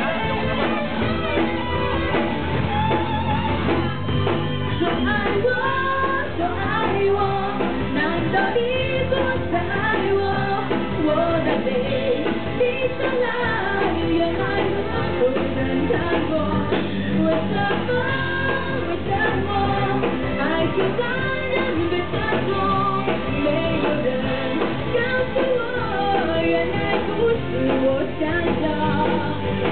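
Live band playing a song, with a singer's voice carrying the melody over electric bass guitar and the rest of the band.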